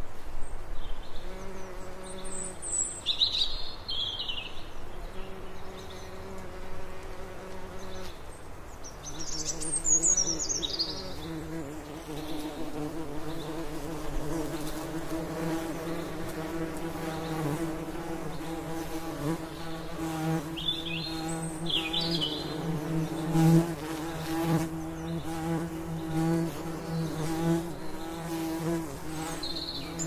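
Bees buzzing in a steady, pitched hum that comes and goes during the first third and then runs on louder and unbroken. Over it a blackbird sings a few short, high song phrases, well spaced apart.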